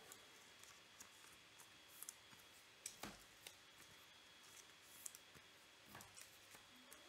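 Near silence with a few faint, scattered clicks, about four or five spread across several seconds.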